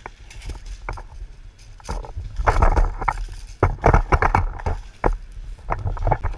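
Handling noise from a gun-mounted camera: irregular knocks, clicks and rustling of gear and dry leaves as the player shifts, with two denser clattering flurries in the middle.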